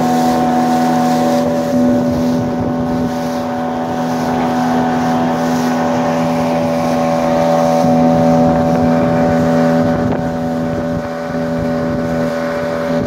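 Outboard motor running steadily with the boat underway at speed. Wind buffets the microphone.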